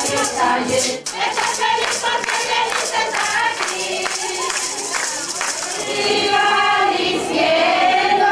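A group of voices singing a chanted song, with rhythmic hand clapping beating through the middle; the singing swells again over the last couple of seconds.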